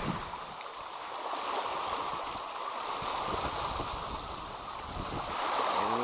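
Small river waves lapping and splashing against a rocky shoreline in a steady wash, with wind buffeting the microphone.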